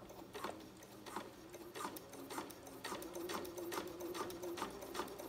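Janome sewing machine stitching slowly on its longest basting stitch. It starts at once: a steady motor hum with about four needle strokes a second, picking up a little toward the end.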